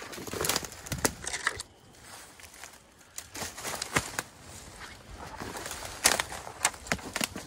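Footsteps crunching through dry fallen leaves and brush, with twigs snapping underfoot in irregular crackles and a short lull about two seconds in.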